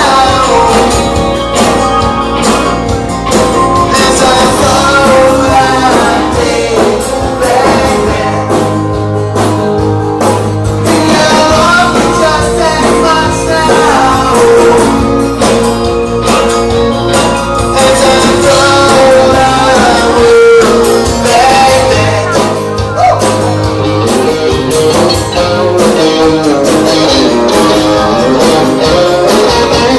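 A rock band playing live and loud: electric guitars, bass and drums, with male voices singing.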